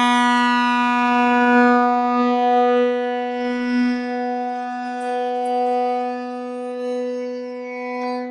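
Single-chime Leslie locomotive air horn blown on compressed air: one long, steady blast of a single note, its loudness wavering slightly.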